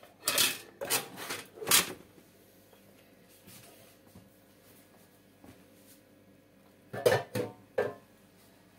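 Aluminium bread-machine pan being shaken and knocked to free a baked loaf: three rough scraping knocks in the first two seconds, then a few more near the end.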